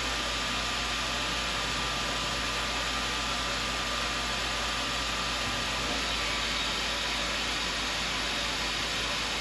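Tormach CNC mill running in mill-turn mode: a steady, even hiss with a faint constant high whine and no sudden knocks.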